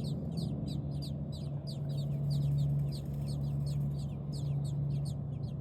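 Nestling birds calling in the nest: a fast, continuous run of short, high chirps, each sliding down in pitch, several a second. A steady low hum runs underneath.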